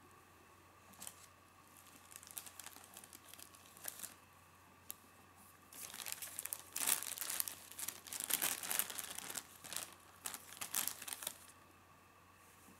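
A thin clear plastic bag crinkling and rustling as it is handled and spread out flat by hand, in irregular bursts that grow busier and louder in the second half and stop shortly before the end.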